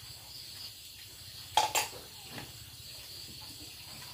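Crickets chirring steadily in the background, with a short clatter of spoons against dishes about a second and a half in and a lighter clink a little later.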